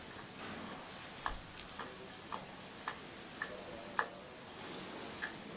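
Milton Roy G Series dosing pump's drive mechanism being turned over by hand, giving light, fairly regular clicks about twice a second.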